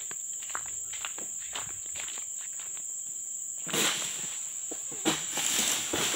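A steady, high-pitched insect drone runs under irregular footsteps crunching over the plantation floor, which is littered with dry palm fronds. The footsteps grow louder and rougher a little past halfway.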